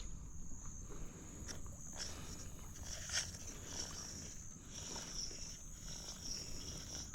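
Night insects chirping in a steady high-pitched chorus over a low background rumble, with a few faint knocks about one and a half and three seconds in.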